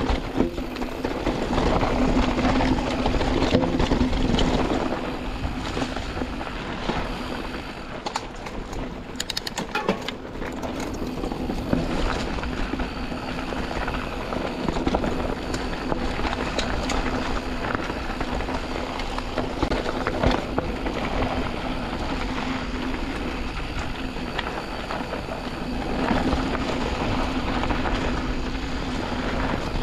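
Canyon Spectral AL 6.0 full-suspension mountain bike riding down a dirt trail, heard from a chest-mounted camera: a continuous rumble of tyres over dirt and stones with frequent knocks and rattles from the bike, under a steady low hum. A run of sharp clicks comes about nine to eleven seconds in.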